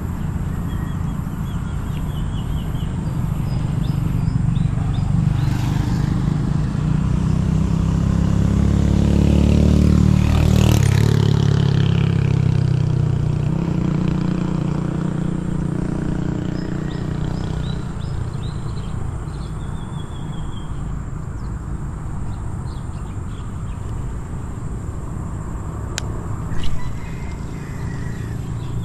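A motor vehicle's engine passing by: a low hum that grows louder for about ten seconds, peaks, then fades away over the next several seconds. A single sharp click near the end.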